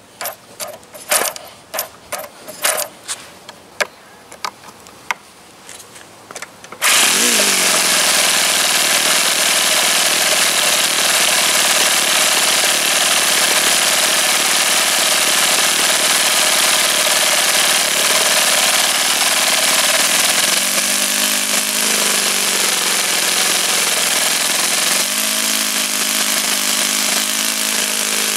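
OS FS-48 Surpass four-stroke model glow engine being started: a series of short, sharp knocks over the first several seconds, then about seven seconds in it catches and runs loud and steady, its note shifting a couple of times later on as its speed changes. The owner finds it loud enough when running to think its bearings need replacing.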